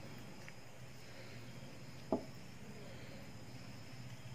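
Wooden spatula spreading thick masala paste over fish on a banana leaf: faint soft scraping, with one sharp tap about two seconds in, over a steady low hum.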